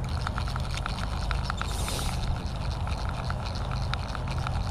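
A steady low mechanical hum with light, irregular clicking throughout and a short hiss about two seconds in.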